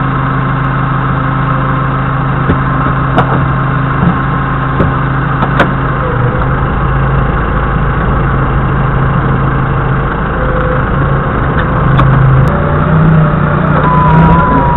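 Doosan 4.5-ton forklift's diesel engine running steadily, with a few sharp knocks as the forks handle a farm machine. The engine gets louder near the end.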